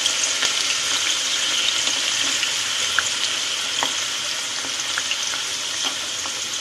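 Freshly added sliced onion frying in hot ghee in a wok: a steady sizzle with scattered small crackles, easing slightly toward the end.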